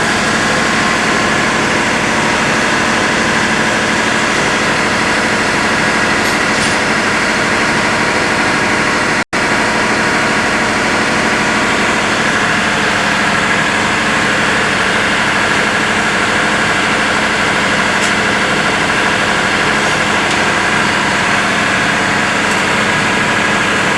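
A diesel engine running steadily at a constant speed, giving a dense, unchanging drone. The sound cuts out for an instant about nine seconds in.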